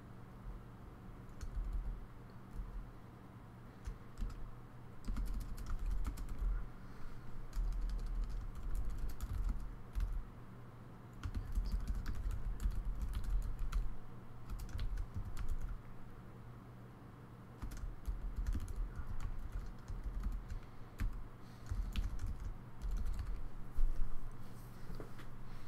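Typing on a computer keyboard: bursts of key clicks and soft key thumps, broken by short pauses, with one sharper click near the end.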